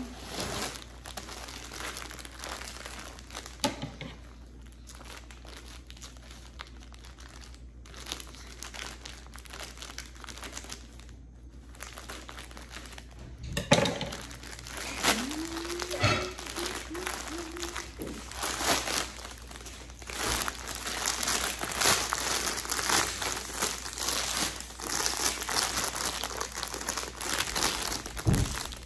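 Plastic packaging crinkling and rustling as a package is handled and opened, with scattered sharp crackles. It is light at first, then louder and busier through the second half.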